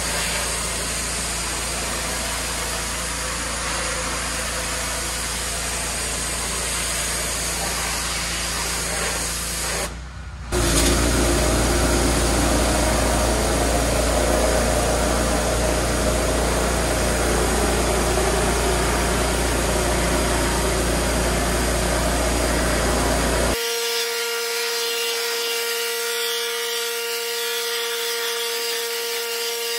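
Pressure washer running steadily while its wand jet sprays the wooden deck boards, a continuous hiss over a low machine hum. There is a brief break about ten seconds in, after which it is louder. In the last several seconds the sound changes to a steadier whine with several held tones.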